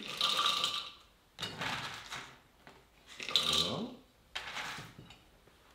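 Roasted cocoa beans spooned from a stainless steel bowl into the steel jug of a kitchen chopper, rattling and clinking in four or five short bursts.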